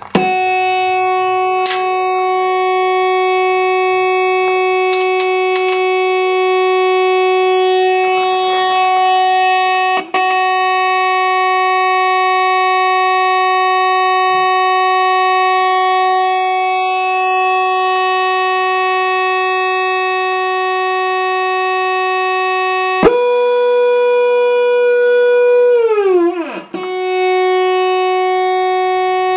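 Electronic fog horn unit sounding a loud, steady, buzzy tone. It steps up to a higher pitch about 23 seconds in, slides back down to the first pitch a few seconds later, and steps up again at the very end. A few faint clicks can be heard under it.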